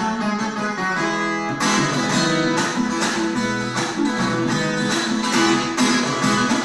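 Viola caipira, the Brazilian ten-string folk guitar, being played: picked notes at first, then steady rhythmic strumming from about a second and a half in.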